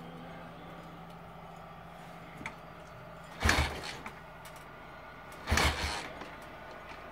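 Victoria V35 Bergmeister V-twin being kick-started: two kicks about two seconds apart, each turning the engine over in a short burst, without it catching and running.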